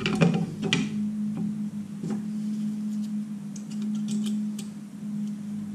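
Light metallic clicks and ticks of drum brake springs and shoe being handled and fitted on the backing plate, a cluster in the first second and fainter ones later, over background music with a steady low hum.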